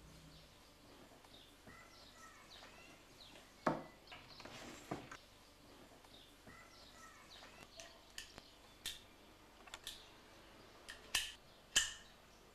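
Faint birds chirping, with scattered clicks and knocks from a wooden nightstand drawer and small objects being handled. The sharpest knocks come about four seconds in and twice near the end.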